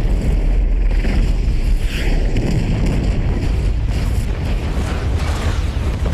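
Deep, continuous rumble of a massive fuel-and-explosives blast, with sharper bursts breaking through now and then as further fireballs go up.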